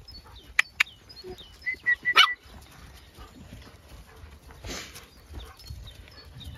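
A small dog giving a few short, sharp yaps, the loudest about two seconds in.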